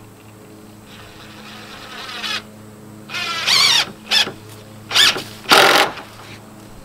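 Cordless DeWalt impact driver driving a screw into a wooden trim block: it builds up from about a second in, then runs in four short, loud bursts as the screw is driven home.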